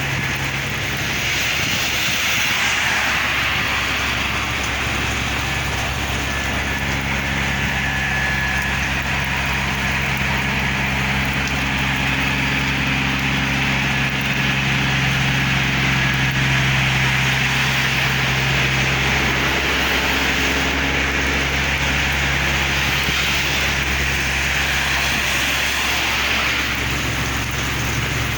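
Heavy rain falling steadily, with the low hum of a passing or idling motor vehicle's engine under it that grows louder after a few seconds and fades near the end.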